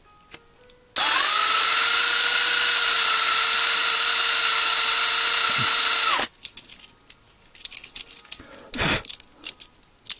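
A 36-volt cordless drill with a 3/16-inch bit runs for about five seconds, boring into the underside of a 1:64 die-cast truck to open it. Its whine climbs as it spins up, holds steady, then cuts off suddenly. Light clicks and a thud follow as the metal parts are handled.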